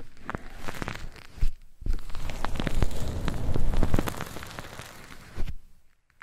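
Close-miked ASMR scratching and crackling on the microphone: dense, rapid clicks that build to their thickest in the middle, then thin out and stop shortly before the end.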